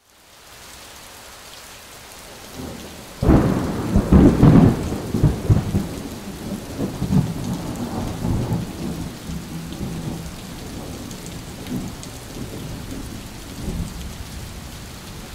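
Thunderstorm: steady rain hiss, with a sudden loud rumble of thunder about three seconds in that slowly dies away in smaller rumbles.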